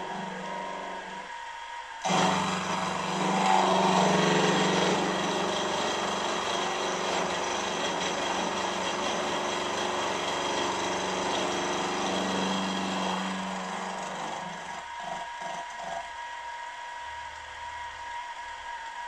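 Milling machine running with an end mill skimming the face of a small metal cylinder end plate held in a vise: a steady motor and spindle whine with cutting noise on top. The cutting noise eases off about fourteen seconds in, leaving the spindle running.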